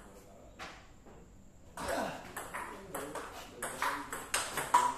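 Table tennis rally: the ball clicking off the paddles and the table. A single tick, then from about two seconds in a quick run of hits that come faster near the end.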